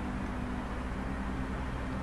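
Steady low hum with hiss, a constant background drone with a few faint held low tones and no distinct events.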